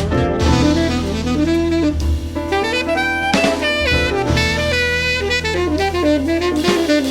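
Instrumental jazz band: a saxophone plays a melodic solo line over piano, bass and drum kit.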